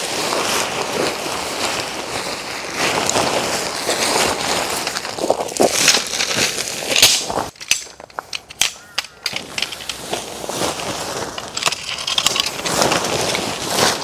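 Handling noises from pitching a tent: tent fabric rustling and crinkling, with clicks and knocks from the parts. The noise drops away for a moment about halfway through, then resumes.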